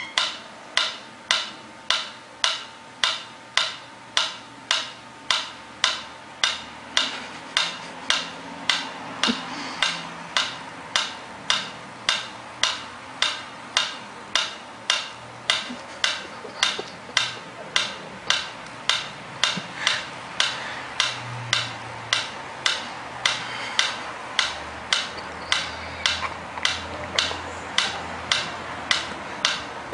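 Mechanical pyramid metronome ticking at a steady tempo, about two sharp ticks a second.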